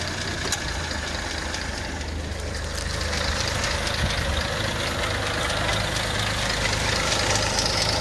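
1951 Nash Statesman's flathead straight-six engine idling steadily with the hood open, the belt-driven fan turning and the air-conditioning compressor switched off.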